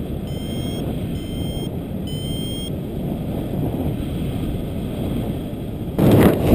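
Paragliding variometer beeping, about one short beep a second, each rising slightly in pitch, the climb tone that signals lift; the beeps stop a little under three seconds in. A steady rush of airflow on the microphone runs under it and jumps louder about six seconds in.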